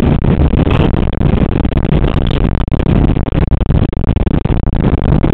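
Cockpit noise of a Boeing 747-300 on its landing rollout just after touchdown: a loud, steady rumbling roar of the engines and the aircraft running down the runway.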